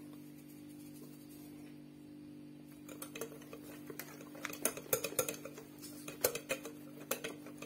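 Wire whisk clicking and scraping against a glass bowl as cake batter is stirred by hand, with irregular taps starting about three seconds in. A steady low hum runs underneath.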